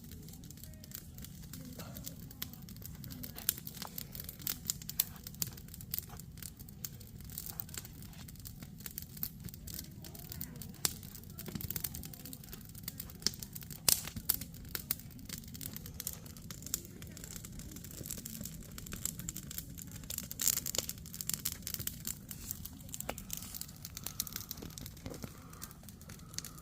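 Wood campfire crackling and popping irregularly over a low steady rumble.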